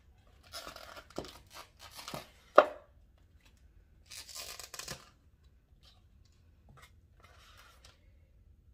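Food packaging being torn and rustled in short spells, with a sharp tap about two and a half seconds in.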